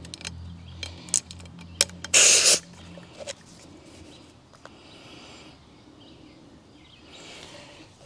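Tire inflator humming steadily as it pumps up an electric unicycle tire to seat its bead on the rim, with a loud half-second hiss of air about two seconds in. The hum stops about three seconds in, leaving faint hisses and small clicks.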